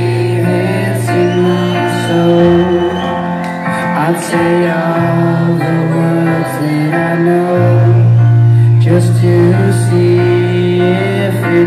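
Live rock band music through a concert PA: upright piano with electric guitar and steady low bass notes, a slow instrumental passage between sung lines.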